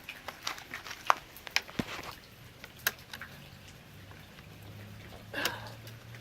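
Scattered clicks and knocks of handling noise while the chainsaw is readied for a start, over a low steady hum; the saw's engine is not running.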